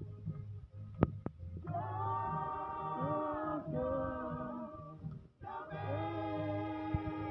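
A group of people singing together without instruments, slow phrases of long held notes. A single sharp click about a second in.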